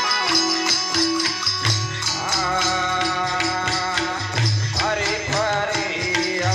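Folk song: a man singing with instrumental accompaniment and steady rhythmic percussion; the voice comes in about two seconds in, with sliding ornamented notes.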